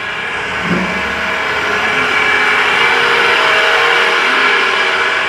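A steady motor-like whir with a few held tones, growing slowly louder.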